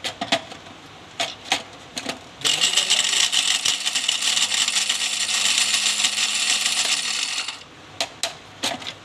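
Electric mixer grinder grinding almonds in its small dry jar. First come a few plastic clicks and knocks as the jar is fitted onto the base. Then, about two seconds in, the motor spins up and runs loudly and steadily for about five seconds before winding down, followed by more clicks as the jar is handled.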